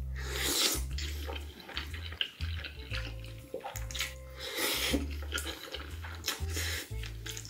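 A person slurping and chewing big mouthfuls of saucy, cheesy food, wet slurps loudest about half a second and about five seconds in. Background music with a steady bass beat plays underneath.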